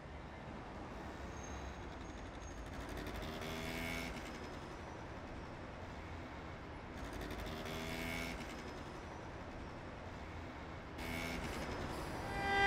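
Street traffic noise: vehicles passing over a steady low rumble, two of them with engines rising in pitch, and a car horn sounding briefly near the end.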